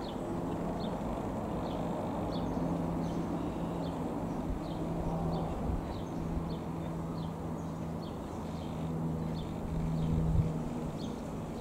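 Piper PA-28-161 Warrior II's four-cylinder Lycoming piston engine and propeller droning steadily as the light aircraft flies overhead. A bird chirps about once a second in the background, and a gust of wind hits the microphone near the end.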